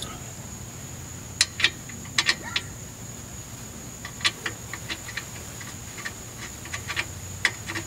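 Scattered sharp metallic clicks and clinks, some in quick pairs and triples, of hand tools and shock-absorber hardware being handled, over a steady faint high-pitched whine.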